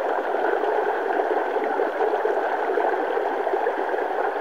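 Mountain stream rushing and gurgling as white water tumbles over rocks, heard up close: a strong, steady rush of water.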